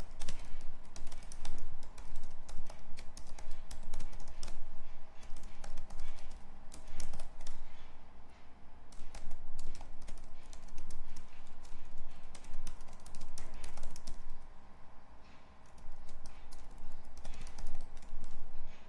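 Typing on a computer keyboard: quick, irregular runs of keystrokes with a couple of short pauses.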